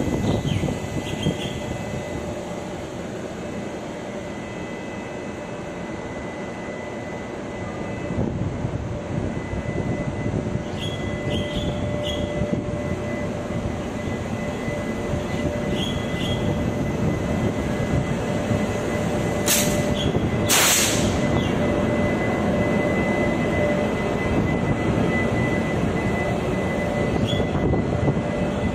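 Taiwan Railways E200-class electric locomotive (E209) pulling a Chu-Kuang express out of the station and past, its machinery running with a steady whine over the rumble of the train, growing louder as it gathers speed. Two short, loud bursts of hiss come about twenty seconds in.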